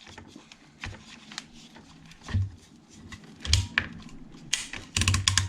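Scattered light clicks and knocks of a hand crimp tool and coax cable being handled as the ferrule is set into the crimp die, with a quick run of clicks near the end.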